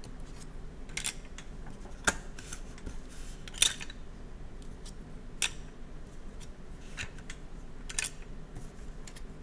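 Hard plastic game tiles clicking as they are pushed one at a time into a plastic Zingo tile dispenser, a sharp click every second or two at an uneven pace.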